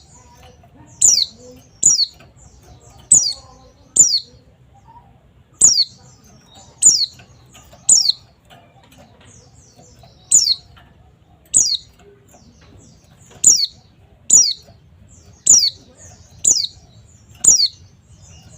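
White-eye (pleci) giving a series of sharp, high calls that each sweep downward, about one a second and sometimes two in quick succession, with a short pause partway through.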